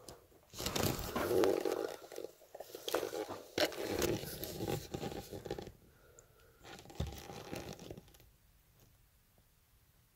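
Loose rock and gravel crunching and scraping underfoot in an irregular run of steps. The sound dies away about two seconds before the end.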